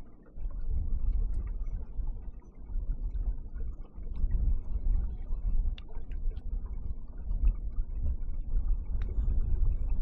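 Low, gusting rumble of wind buffeting the microphone on a kayak on the water, with a few faint small ticks.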